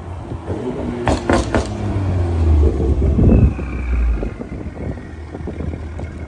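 BMW M340i's turbocharged 3.0-litre straight-six, through a Mastery of Art & Design catback exhaust and downpipe, running with a deep, loud rumble as the car drives past. There are a few sharp cracks about a second in. At about four seconds the rumble drops away and a falling whistle is heard: the turbo spooling down.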